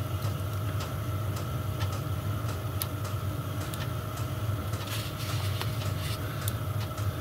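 A steady low mechanical hum, with scattered small metallic clicks of a spanner and loose steel parts on a hand pump's linkage as its nut is undone.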